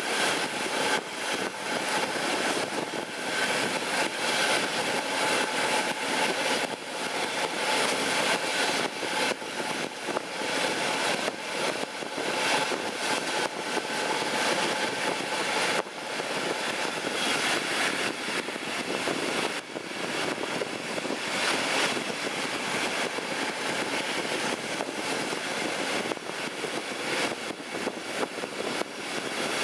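DB class 218 diesel-hydraulic locomotive working hard up a steep grade, heard from an open coach window behind it, under a steady rush of wheel, rail and wind noise with faint engine tones.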